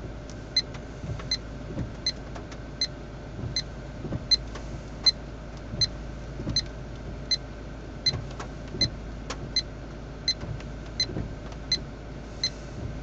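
2011 GMC Sierra diesel idling, heard inside the closed cab, under a short, high electronic beep that repeats evenly about every three-quarters of a second.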